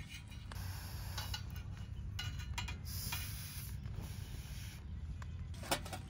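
Wood fire burning, hissing with scattered crackles and one sharp pop near the end, over a steady low rumble.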